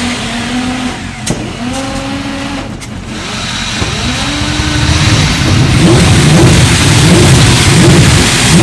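Classic racing motorcycle engine being revved: a few short blips that rise and fall in pitch, then it runs louder and rougher, with a deep, uneven rumble building over the last few seconds.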